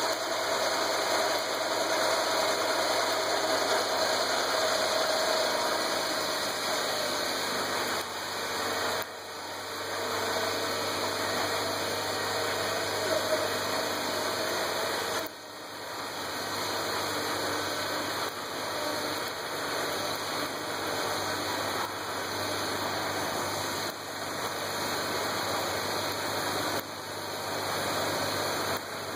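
Kubota BX24 compact tractor's diesel engine running under load, driving a front-mounted PTO snow thrower whose whirring blower is throwing snow, with a steady rushing hiss over the engine.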